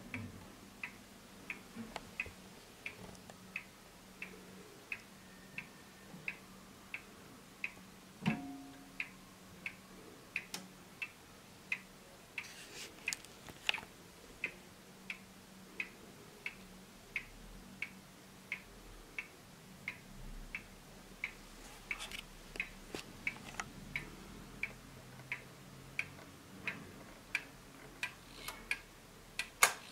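Hermle pendulum wall clock's mechanical movement ticking steadily, about three even ticks every two seconds. A single louder knock comes about eight seconds in, and near the end the minute hand is turned by hand toward the hour, adding a few extra clicks.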